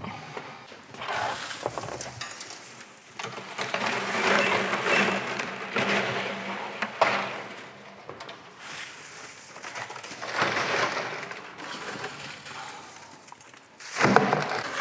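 Gloved hands scooping tangled metal lathe chips out of the chip pan and dropping them into a plastic bin, heard as several bursts of rustling, clinking swarf with a sharp knock about seven seconds in.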